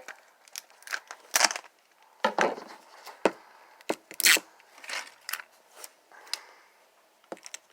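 Plastic packaging being handled and torn open: short, irregular crinkles and rips.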